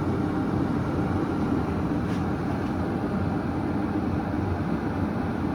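Chefman electric glass kettle simmering steadily, its water heating toward a full boil.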